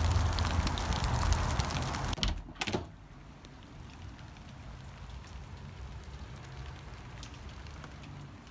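Wind rumbling on a phone microphone in falling sleet. A couple of clicks about two seconds in give way to a much quieter, steady hiss of light rain with faint drop ticks.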